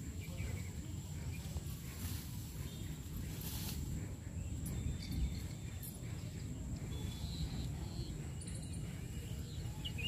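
Open-field ambience: a steady high insect drone, a constant low rumble, and a few faint bird chirps, the clearest near the end.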